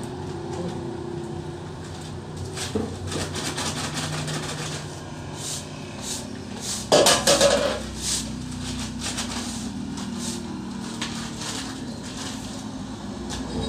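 Rustling and knocking of cement sacks and a plastic bucket being handled on a concrete floor, with a loud cluster of knocks about seven seconds in, over a steady low hum.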